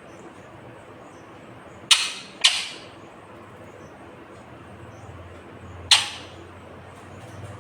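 Indian ringneck parakeet giving three short, harsh, loud squawks: two in quick succession about two seconds in, and one more near six seconds.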